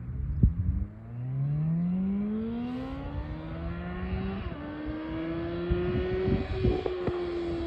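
Suzuki GSX-S 750 inline-four motorcycle on a Yoshimura exhaust with no dB killer, accelerating hard with its pitch climbing steadily. About four and a half seconds in there is a short break as it shifts up, then it holds a higher note that eases off near the end.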